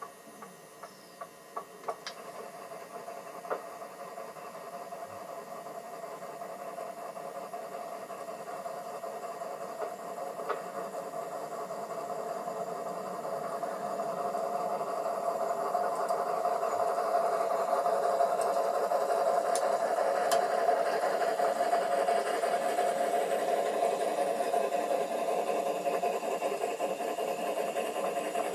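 Large-scale USA Trains Hudson model locomotive and its train running on track, the motor and gearing giving a steady humming drone. It grows steadily louder over the first eighteen seconds or so, then holds, with a few sharp clicks in the first few seconds.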